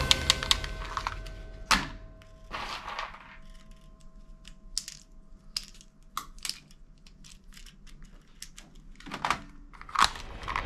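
Plastic toy guns being handled and rummaged through in a box: scattered clicks and clatters, louder about two seconds in and again near the end.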